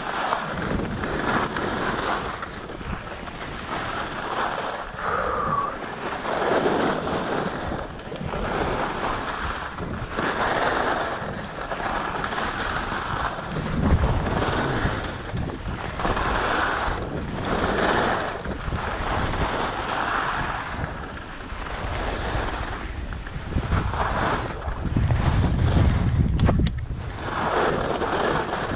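Alpine skis carving turns on packed, groomed snow: a rushing swish of the edges that swells and fades with each turn, about every two seconds. Wind buffets the chest-mounted microphone, in heavier gusts about halfway through and near the end.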